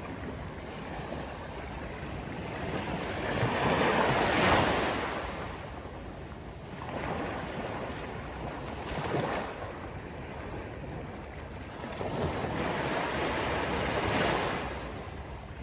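Sea waves breaking on a beach, surging in repeated swells every few seconds, with some wind buffeting the microphone.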